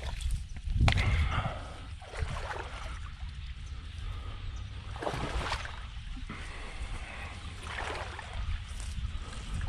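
Footsteps of a person moving through wet, flooded ground, sloshing and rustling every second or two, with wind rumbling on the microphone.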